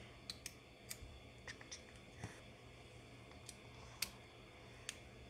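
Faint, scattered clicks and ticks of metal tweezers picking at the Nintendo Switch's circuit board and connectors, about ten over the few seconds, the loudest about four seconds in.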